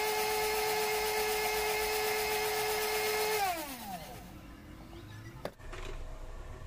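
Electric mixer-grinder with a small steel jar running steadily with a high whine while grinding chutney. It is switched off about three and a half seconds in, and the motor winds down with a falling pitch. A sharp click follows a couple of seconds later.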